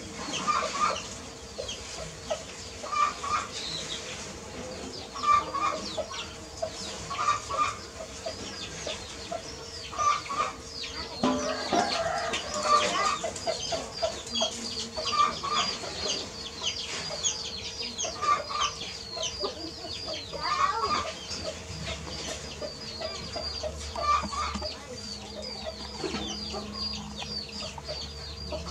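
Chickens clucking in short, irregular calls every one to three seconds, with a stretch of quick high chirps in the middle.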